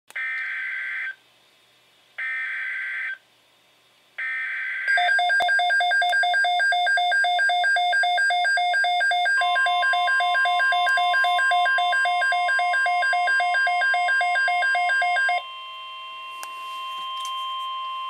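Midland weather alert radio receiving a NOAA Weather Radio alert: three one-second bursts of the SAME digital header's screechy data tones, then the radio's own loud alarm beeping in rapid pulses. About halfway through, a steady tone near 1 kHz joins in, the broadcast's attention tone, and it carries on after the beeping stops a few seconds before the end.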